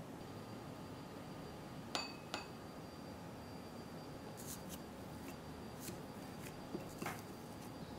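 Two quick clinks on a small glass bowl, half a second apart, leaving a thin high ring, as strawberry powder is tipped from a plastic measuring spoon onto the dough. Later, light scratchy ticks and a soft knock against the glass as fingers press and knead the rice-flour dumpling dough in the bowl.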